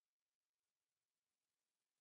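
Silence: a pause in the narration with nothing audible.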